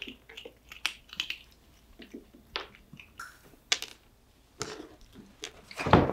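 A cat crunching dry treats close to the microphone: irregular crisp crunches and clicks, with a louder rustle near the end.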